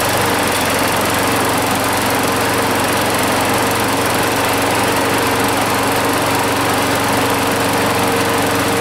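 Craftsman push mower's 6.75 HP Briggs & Stratton single-cylinder engine running steadily and loud, just after starting on the first pull.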